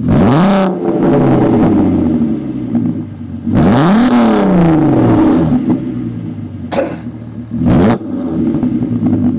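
Mk5 Volkswagen Golf R32's 3.2-litre VR6 idling through a Scorpion non-resonated cat-back exhaust and revved four times: a quick rev at the start, a longer rev a few seconds in, and two short, sharp blips near the end.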